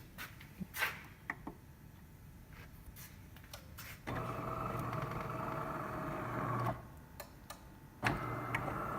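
DeLonghi Magnifica super-automatic espresso machine starting a brew cycle. After a few faint clicks, its motor-driven mechanism runs steadily with a low hum for about two and a half seconds, stops briefly, then starts again near the end.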